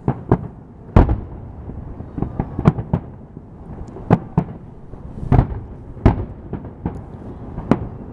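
Fireworks going off: a dozen or so sharp bangs at irregular intervals, some in quick pairs, over a steady low rumble of more distant explosions. The loudest bangs come about a second in and around five seconds in.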